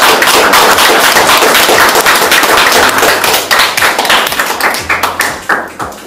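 Audience applauding: dense, loud clapping that thins out into scattered claps near the end.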